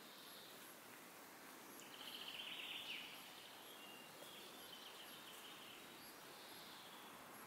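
Quiet woodland ambience with small birds singing: a rapid high trill about two seconds in, the loudest sound, then a few shorter high phrases.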